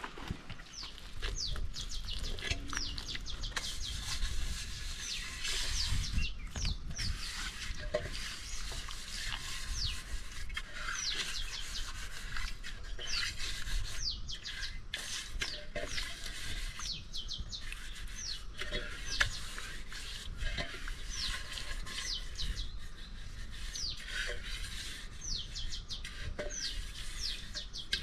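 Small birds chirping continually, many short, quickly falling chirps, over a low rumble.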